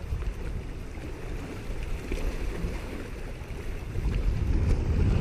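Wind buffeting the microphone in a rumbling rush, gusting louder near the end, with small waves washing against the riprap rocks of a seawall.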